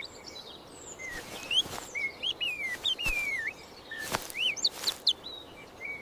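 Birds chirping and twittering in quick whistled notes that slide up and down, with a few short clicks mixed in.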